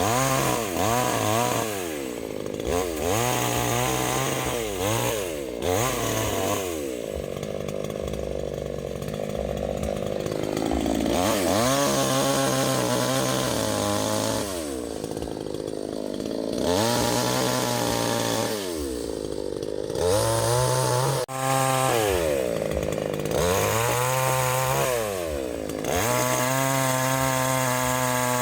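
Small, cheap two-stroke chainsaw revving over and over, its engine pitch climbing and dropping back, with several stretches held at full speed as it saws through the trunk of a fallen tree.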